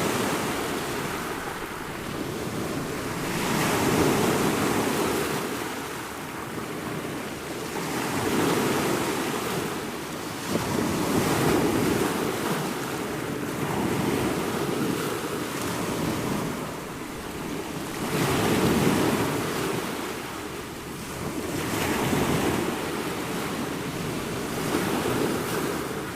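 Ocean waves breaking and washing on a shore, a continuous surf noise that swells and recedes every few seconds, with some wind.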